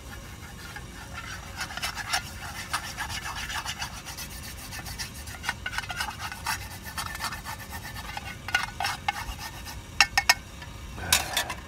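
Rubber spatula scraping softened food residue out of a frying pan: a run of short scraping strokes and light clicks, with two sharp clicks about ten seconds in and a louder scrape near the end.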